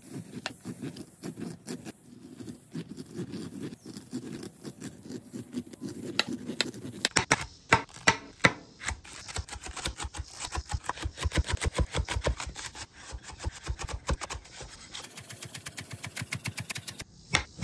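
A chef's knife shearing kernels off a grilled corn cob, a scraping, rubbing sound. About seven seconds in it gives way to rapid knife strokes tapping on a cutting board, several a second, as a jalapeño and green onions are sliced.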